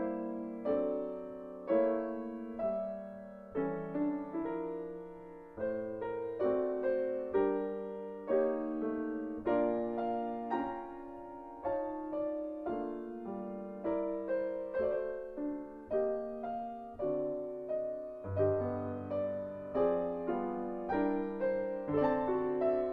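Piano music playing, a steady run of struck notes and chords, each one dying away before the next.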